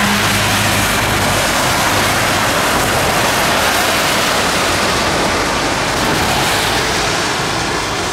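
Steady rushing of floodwater pouring through a flooded desert wash and over a concrete spillway, mixed with traffic on the wet road, a vehicle's low engine hum under it in the first few seconds.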